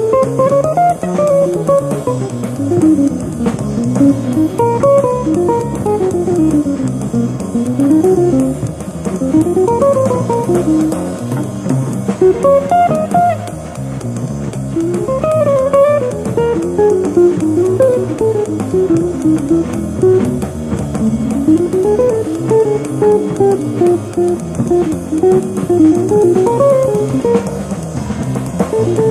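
Jazz guitar trio playing: an electric archtop guitar runs fast single-note lines up and down over walking upright bass and drums.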